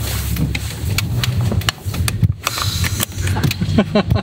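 BMW Z4 Coupe's engine running at low revs, heard from inside the cabin as the car creeps at low speed, with a scatter of short clicks and knocks. People laugh and voice sounds come in near the end.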